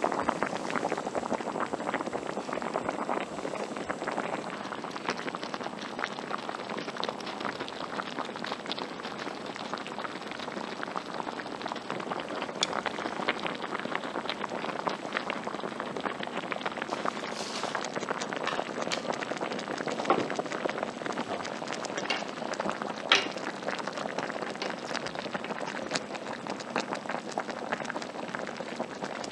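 Seafood, beef and chicken broth boiling in a large hotpot: a steady, dense bubbling crackle. A couple of sharper clicks stand out about two-thirds of the way through.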